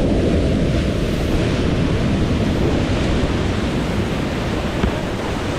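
Rushing whitewater: a steady, loud noise with a heavy low rumble and no distinct events.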